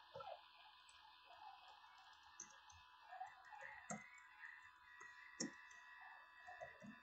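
Faint, irregular computer keyboard keystrokes, with two sharper clicks near the middle, over a faint steady hiss and hum.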